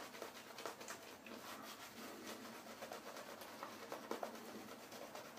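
Shaving brush working lather over a bearded face and neck: faint, irregular soft swishing and squishing.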